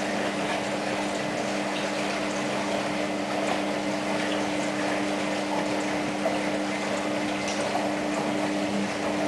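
Hoover Ökologic WA1000 De Luxe washing machine running with water rushing through it over a constant low electric hum.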